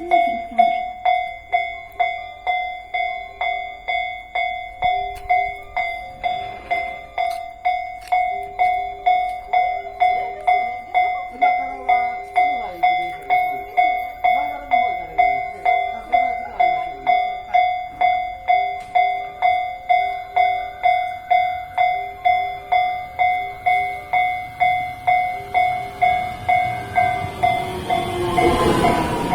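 Japanese railway level-crossing warning bell ringing steadily at about two strikes a second. Near the end an approaching train's running noise grows under it.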